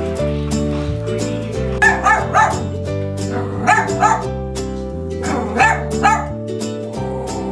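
A dachshund barking in quick pairs, a pair about every two seconds and four pairs in all, over background music.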